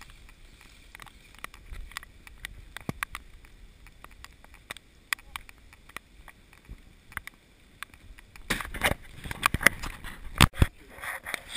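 Handling noise on a GoPro's waterproof housing: scattered sharp clicks, then from about eight and a half seconds a run of louder knocks and rustling as a hand touches the camera.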